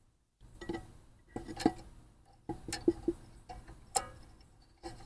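Light, irregular metallic clicks and taps as a governor linkage rod is hooked onto the carburetor of a Briggs & Stratton lawnmower engine, each click ringing briefly.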